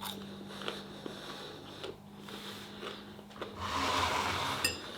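A person chewing a mouthful of food: small scattered mouth clicks, then a louder stretch of about a second near the end.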